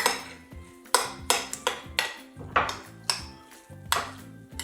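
A utensil knocking and clinking against a bowl, about two to three strikes a second, while egg salad is mixed. Background music plays underneath.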